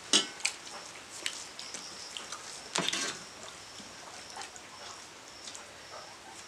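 Eating by hand from steel plates: a few sharp clicks and clinks of fingers and a small steel bowl against the plates, with a louder scrape of metal on metal about three seconds in.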